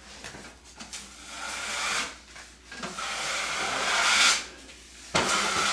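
A wide drywall knife dragging setting-type joint compound across a taped ceiling seam: three long scraping strokes, each building and then cutting off.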